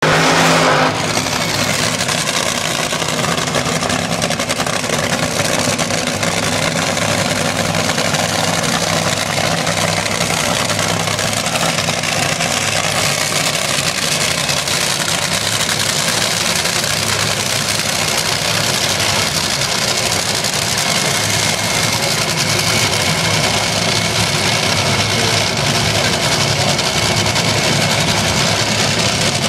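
Drag-racing car engines idling loudly and steadily, with no launch or full-throttle run.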